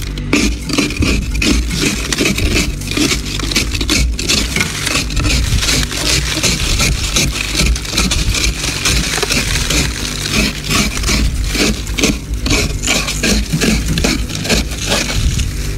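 Thick freezer frost being scraped and broken off by hand inside a heavily iced freezer compartment: a dense, irregular run of scratchy scraping strokes.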